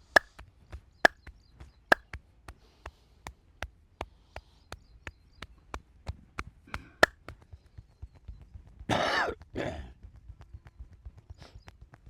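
Hands striking in a rhythmic percussive massage: quick chopping slaps, about two to three a second, some sharper and louder than the rest. About nine seconds in, two short, loud, rasping bursts break in.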